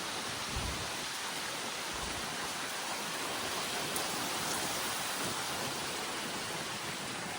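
Rain falling steadily, a dense even hiss, with a couple of faint low bumps about half a second and two seconds in.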